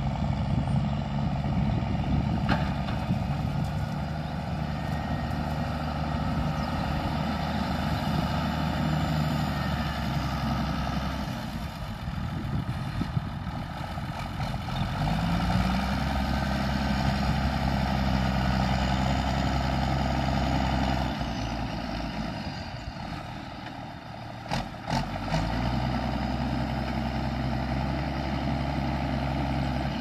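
Ford TW25's six-cylinder turbo diesel running through a straight-pipe exhaust while the tractor turns with a four-furrow plough. The engine eases off about eleven seconds in and again about twenty-one seconds in, each time picking back up with a rising note, and a couple of short knocks come just before the second pick-up.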